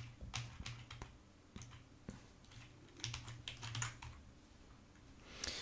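Typing on a computer keyboard: a quick run of keystrokes, a few scattered ones, then another short run about three seconds in. A brief, louder noisy burst comes near the end.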